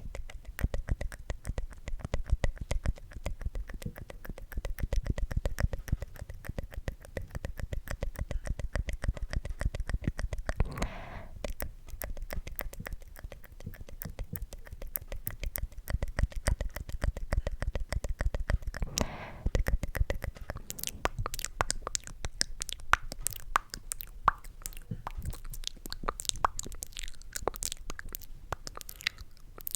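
ASMR mouth sounds close to the microphone: a rapid, continuous run of wet, sticky clicks and pops from the lips and tongue, with a soft breath twice.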